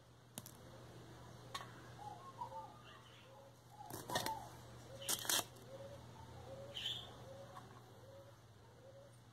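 A bird calling a string of short, evenly spaced notes, about one every half second or so, with a few sharp clicks and rattles of small pebbles being moved in a terracotta pot, loudest about four and five seconds in.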